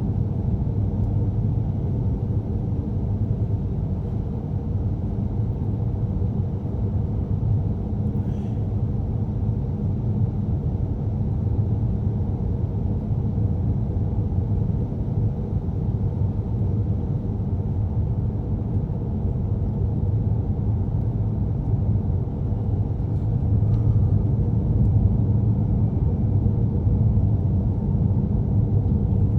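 Steady low rumble of road and engine noise inside a moving car's cabin, getting a little louder towards the end.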